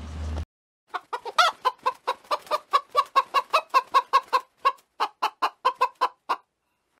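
Hen clucking rapidly, about four short clucks a second for some five seconds, with dead silence between the clucks.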